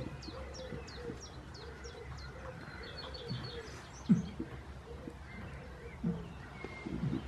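Small birds chirping: a run of short downward chirps repeating about three times a second at the start, then a quick twitter of five short high notes about three seconds in. A few dull low thumps, the loudest about four seconds in.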